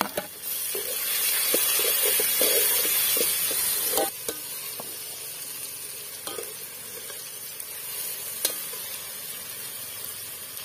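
Chopped tomatoes dropped into hot oil and fried onions in an aluminium pot, sizzling loudly for about four seconds. The sizzle then settles lower, with the scrape and clink of a metal spoon stirring against the pot.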